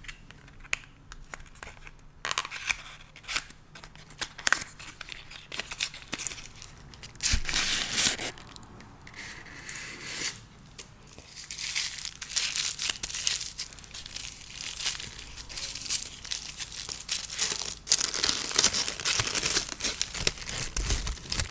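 Packaging from a makeup advent calendar being handled, torn open and crinkled, close to the microphone. Scattered small clicks and rustles come first, then longer spells of dense tearing and crinkling.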